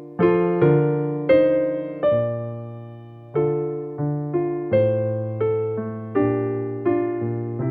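Piano-toned keyboard playing a slow, gentle passage of chords, each struck and left to fade before the next.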